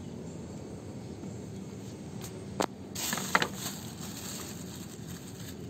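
A sharp click about two and a half seconds in, then a brief crackling rustle with another sharp click, over steady outdoor background noise: handling noise as roofing materials are moved about on the metal roof.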